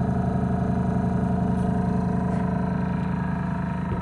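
Air compressor built into a smartphone assembly press running steadily with an even mechanical drone, forced on as air is let out of its tank through the drain valve at the back.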